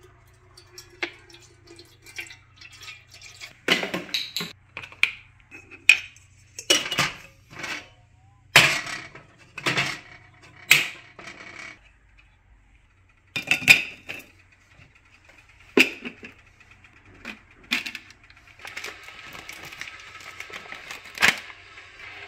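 Kitchenware being handled: a string of separate clinks, clacks and knocks as things are picked up, moved and set down, then a rustling scrape near the end as ground coffee is scooped from a foil bag.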